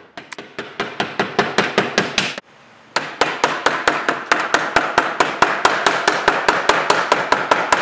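Rapid, even mallet blows, about five a second, driving the fastening strips down into the channel of an office-panel connector pole. There is a short break about two and a half seconds in.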